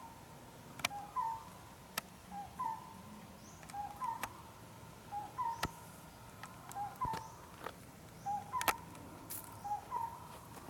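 A bird repeating a short two-note call, a lower note then a slightly higher one, about every second and a half, with scattered sharp clicks.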